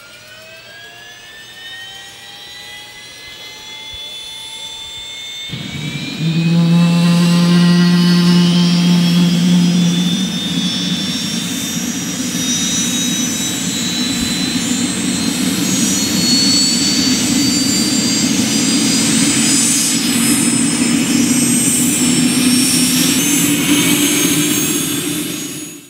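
Bell 206B-III JetRanger's Allison 250 turboshaft engine starting up: a whine that climbs steadily in pitch, then about five seconds in a sudden, much louder rush and low hum join it. The whine keeps rising as the engine and rotor come up to speed, and the sound cuts off abruptly at the end.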